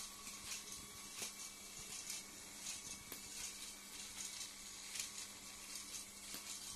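Battery-powered LEGO Power Functions train running on plastic LEGO track. Its motor gives a steady low hum under a light hiss, and irregular short clicks come as the wheels cross the track joints.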